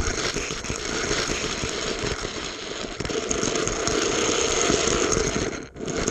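A small camera-carrying toy car rolling along orange plastic Hot Wheels track: a steady, dense rattle of its wheels and body on the plastic, cut by a brief dropout near the end.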